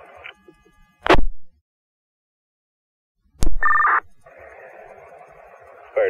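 Fire department two-way radio between transmissions: a sharp pop with a short burst of squelch noise, a silent gap, then another pop and a half-second two-tone electronic data burst as a radio keys up, followed by steady open-channel hiss before the next voice.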